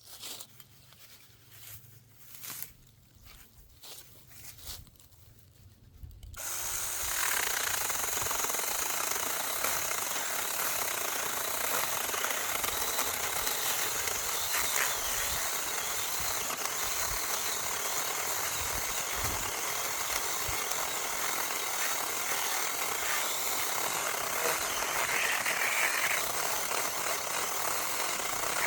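A few light knocks and handling sounds, then about six seconds in a small, cheap electric mini chainsaw starts and runs steadily, its chain cutting into a branch thicker than the saw is meant for.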